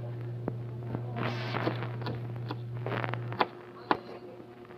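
Knife cutting garlic on a plastic cutting board: a few sharp taps of the blade on the board with some scraping in between, the loudest two near the end. A steady low hum runs underneath and cuts off about three and a half seconds in.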